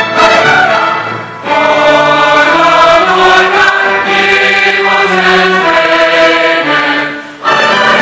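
Large choir singing long held chords with a symphony orchestra in a Christmas choral piece; the orchestra comes in loudly near the end.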